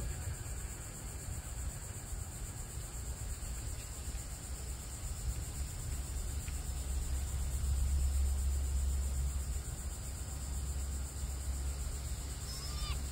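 Steady high drone of insects over a low rumble that swells and fades, loudest about two-thirds of the way in. Near the end comes a brief high-pitched call.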